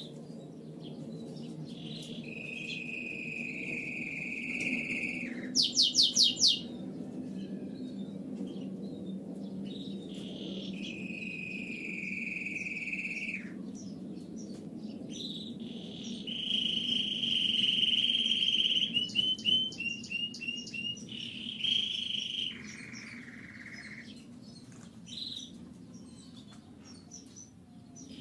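Hybrid male canaries singing hard, in breeding condition: long held notes and fast trills and rolls, with a loud rattling phrase about six seconds in, over a steady low hum.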